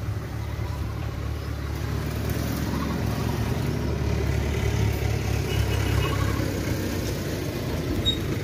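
An engine running steadily at idle: an even low rumble with no change in pitch.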